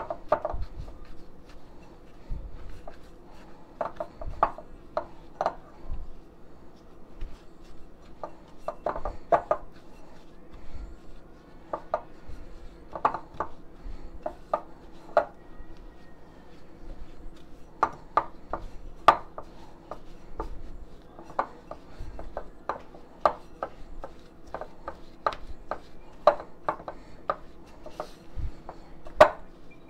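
Cinnamon-roll filling of softened butter, brown sugar and ground cinnamon being mashed together by hand in a glass mixing bowl, with irregular sharp clicks and knocks against the glass.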